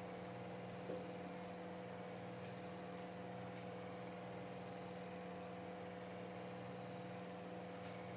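Steady electrical hum with a faint hiss underneath: room tone.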